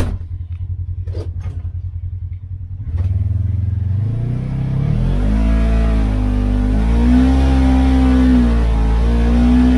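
Side-by-side UTV engine idling with a steady pulse, with one sharp click right at the start. About three seconds in it revs up and pulls away on sand, its pitch rising and dipping with the throttle, heard from inside the cab.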